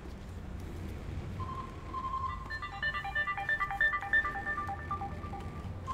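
Phone ringtone: a held electronic tone starts about a second and a half in, then turns into a quick repeating melody of short bright beeping notes, over a low background hum.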